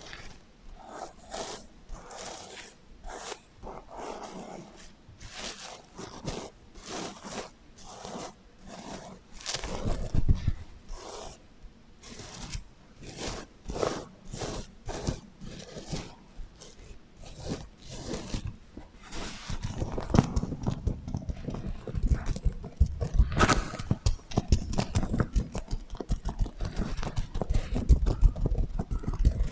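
Sequins on a sequin heart pillow being rubbed and scratched, with an echo effect added: a run of short, scratchy strokes that turn denser and heavier about twenty seconds in.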